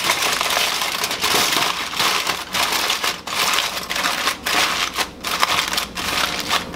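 Aluminium foil crinkling and crumpling as it is folded and scrunched shut by hand into a food packet, an irregular run of crackles broken by a few short pauses.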